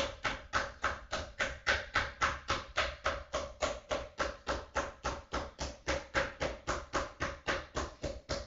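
Metal meat mallet pounding raw steak flat on a wooden cutting board: a steady run of even blows, about four a second.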